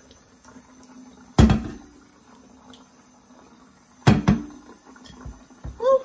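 Metal cookware clanking: one loud clank about a second and a half in, then two more close together around four seconds in, each ringing briefly.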